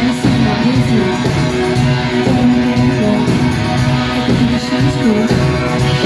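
Live band playing: strummed acoustic guitar, electric guitar and drums, with a woman singing over them, recorded from within the audience.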